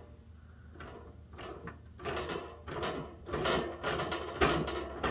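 Irregular clicks, knocks and light rattles of hands handling the opened electric heater's casing, wiring and parts, starting about a second in and growing busier.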